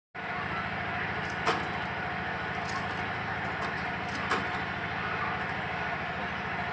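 Steady mechanical-sounding noise with a fast low pulsing, broken by two sharp clicks a few seconds apart.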